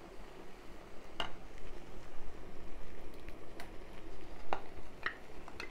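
Wooden spoon stirring curd into thick avial in a clay pot: soft squishing with a few scattered light clicks and knocks of the spoon against the pot.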